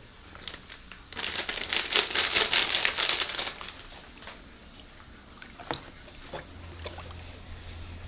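Crinkly material being crumpled and handled, a dense crackling for about two seconds, followed by scattered clicks and taps. A low steady hum comes in near the end.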